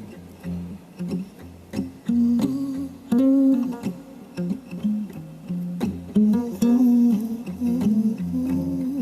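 Instrumental music: guitar notes plucked in a low register, a new note or chord about every half second.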